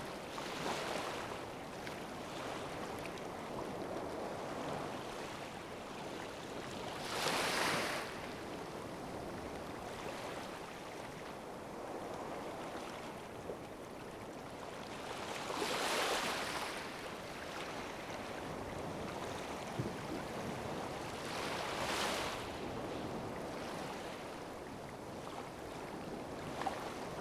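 Ocean waves breaking and washing up on a beach: a steady hiss of surf, with a louder wave crashing about 7 seconds in, again around 16 seconds and near 22 seconds.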